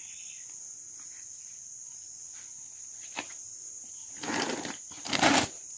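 Steady high insect chirring, with a single click about three seconds in and two brief rustles near the end as hands work soil and a plant into a pot.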